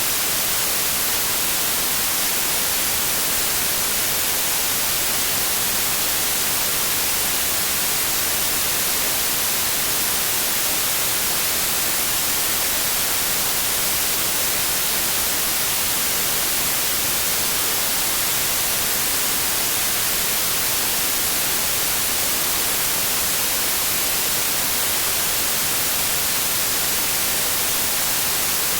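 Synthesised white noise: a steady, unchanging hiss with a flat spectrum, strongest in the highest pitches.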